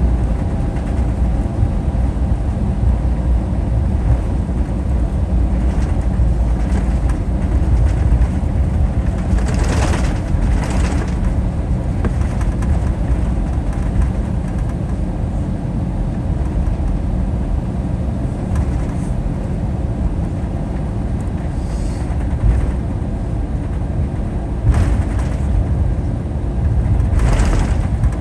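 Airbus A321-200 cabin during taxi: a steady low rumble of the idling jet engines and the rolling gear, with a few short bursts of noise about ten seconds in and again near the end.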